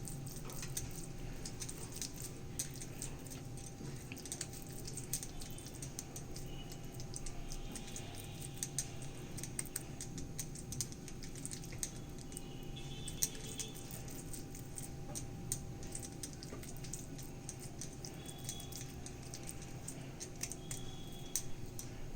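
Faint, irregular soft clicks and pats of oiled hands working minced chicken paste into a palm-sized cutlet, over a steady low hum.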